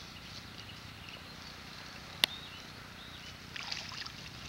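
A single sharp click about halfway through, then a spell of crackling rustles near the end, with faint short chirps behind.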